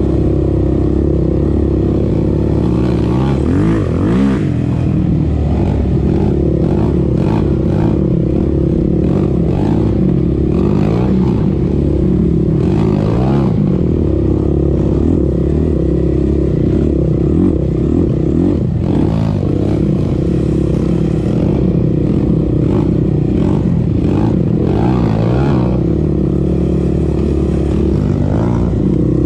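Sport ATV engine running under way, its pitch rising and falling several times as the throttle is opened and closed.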